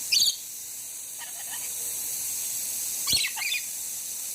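Lorikeets giving short, shrill screeches as the two birds squabble: one burst right at the start, a faint one about a second in, and another pair about three seconds in with a sharp click among them, over a steady hiss.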